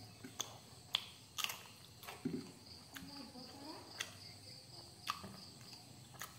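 Faint steady chirring of crickets, with about nine sharp clicks and ticks scattered irregularly through it.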